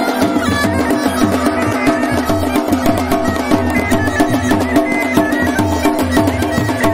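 Kumaoni masak been (bagpipe) playing a folk tune over the steady note of its drones, with dhol drums beating a rhythm underneath.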